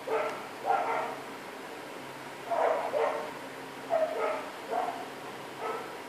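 A dog barking repeatedly in short, pitched yaps, some close together in pairs.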